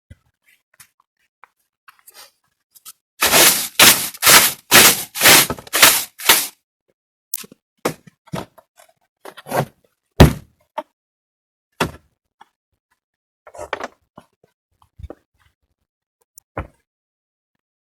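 A quick run of about eight knocks or thuds over some three seconds, then scattered single knocks, the loudest about ten seconds in.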